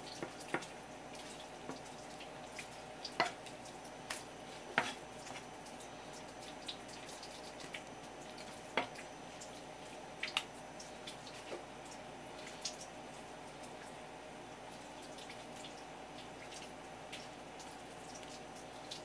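Wet, irregular clicks and ticks from raw bigfin reef squid being cut and its skin peeled off the mantle on a wooden cutting board, a few louder clicks some seconds apart, over a steady background hum.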